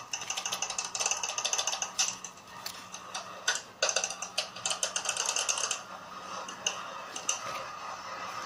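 A folded paper user manual being handled and its pages flipped: crackly rustling and quick clicks, busiest for the first six seconds and sparser after that.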